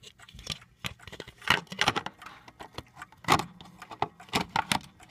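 Handling noise: irregular clicks, knocks and rattles of small hard objects being moved about, with the loudest knocks about a second and a half in, just after three seconds in, and a quick cluster near the end.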